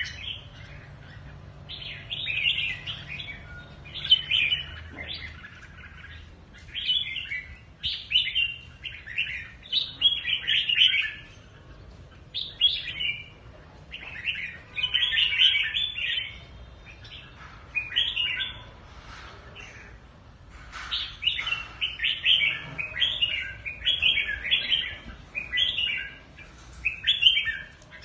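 Red-whiskered bulbul singing: short, bright chirping phrases one after another, with a lull of a few seconds about two-thirds through.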